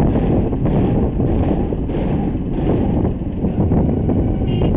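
Wind rushing over the microphone, mixed with vehicle and road noise, while travelling along a road in an open vehicle. A short high beep sounds near the end.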